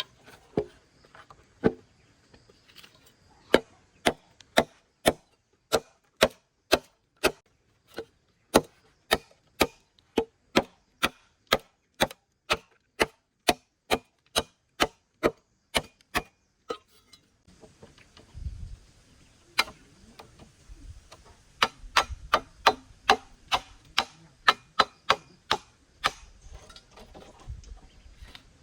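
A tool knocking on bamboo over and over, sharp strikes about two a second. After a short break past the middle, the knocks come back less regularly, with a low rumble underneath.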